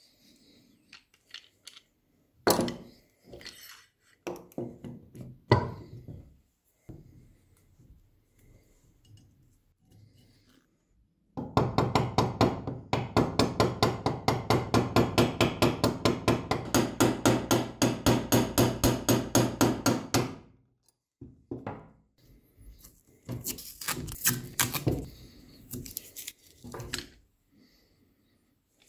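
A hammer tapping rapidly and evenly, about four or five strikes a second for around nine seconds, on a small pin in the steel sliding arm of an old screw clamp. Scattered knocks and clinks of the metal clamp parts being handled come before and after.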